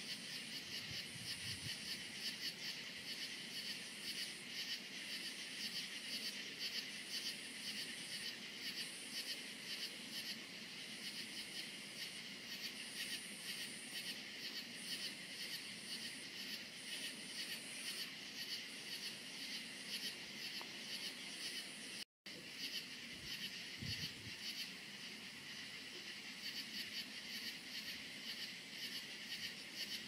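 Night chorus of crickets: a dense, rapidly pulsing trill, with a higher chirring that comes and goes. The sound cuts out for a split second about two-thirds of the way through.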